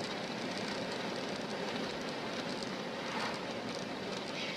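Steady road and tyre noise of a car cruising on a highway, heard from inside the cabin through a dashcam microphone as an even rushing sound.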